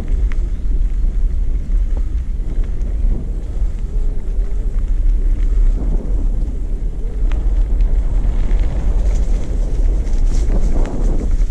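Wind buffeting the microphone of a camera on a moving bicycle, a steady heavy rumble, with the tyres rolling over a dirt path and a few scattered clicks and rattles.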